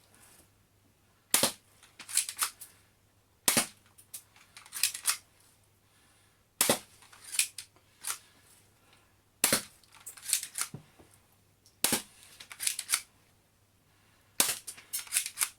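Full-metal spring-powered airsoft Colt 1911 pistol firing six sharp shots two to three seconds apart. Between shots there are quicker clicks as the slide is pulled back to cock the spring.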